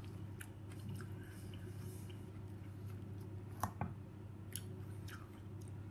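A few faint clicks and light scrapes of a metal fork moving raw puntarelle salad in a ceramic bowl, over a low steady hum.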